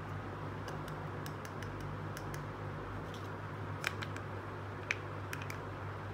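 Small plastic toy kitchen pieces clicking and tapping as they are handled: a scatter of light clicks, with two sharper ones about four and five seconds in, over a steady low hum.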